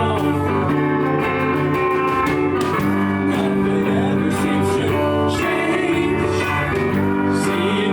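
Music: a band playing a blues-tinged song with guitar to the fore.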